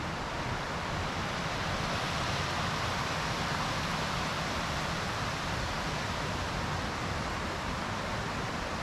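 Steady rushing of a mountain creek, an even wash of water noise without pauses.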